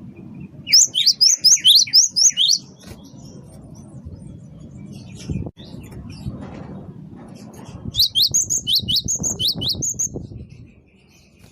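Cinereous tit (gelatik batu) singing in two bursts of quick, sharp, repeated high notes, each about two seconds long; the second burst starts about eight seconds in. A low background rumble runs under it, with a single knock midway.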